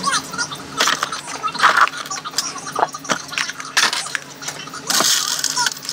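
Small makeup and hair items being handled and set down in a vanity drawer: rustling with scattered light knocks and clatters, a longer rustle near the end.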